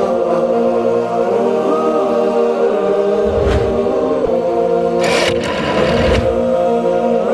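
Programme theme music of held, chant-like voices, with short swooshing transition effects about three and a half seconds in and again about five seconds in.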